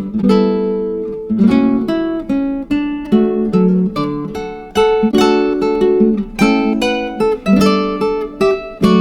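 Background music: a strummed and plucked acoustic guitar playing chords in a steady rhythm.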